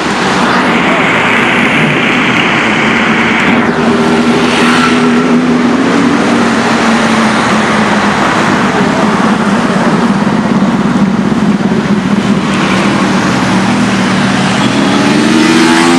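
Car engine running loudly with a steady low note over street noise, rising in pitch near the end as it revs up.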